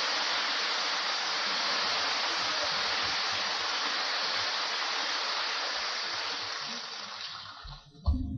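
Steady rushing noise on a 1937 sound-film recording, fading away near the end, followed by a short low thump.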